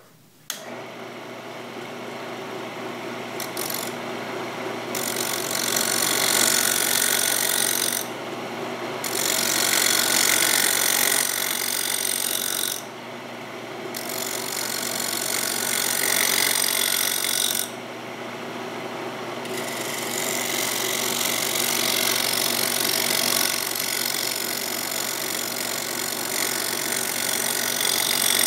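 Wood lathe starting up and running, with a steel scraper cutting into the spinning mahogany bowl blank: a steady hiss of cutting over the lathe motor's hum. The cutting noise stops briefly about five times as the tool comes off the wood.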